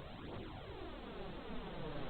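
Eerie electronic hissing drone with a sweeping, phaser-like whoosh running through it, swelling a little near the end.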